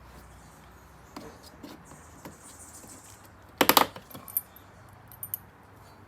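Small hard parts being handled: scattered light clicks and taps, then a quick rattle of sharp clicks a bit over halfway through, the loudest sound, followed by a few faint ticks.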